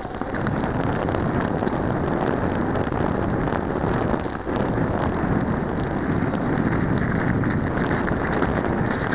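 Wind buffeting the microphone over the running of a vehicle travelling over thin, crunchy snow: a steady, rough rushing noise that dips briefly about four seconds in.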